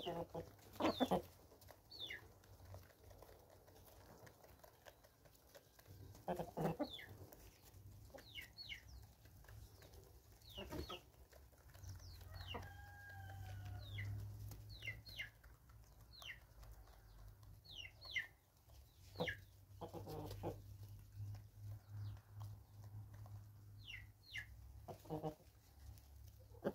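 A flock of free-range chickens clucking intermittently as they forage, with short low cluck bursts every few seconds among many brief, high, falling chirps.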